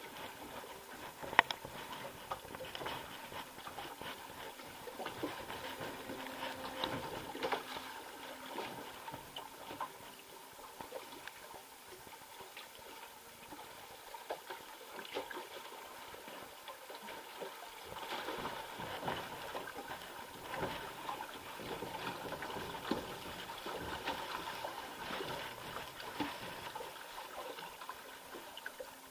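Log flume boat floating along its water channel: water trickling and lapping around the hull, with small clicks and taps throughout and one sharp knock about a second and a half in.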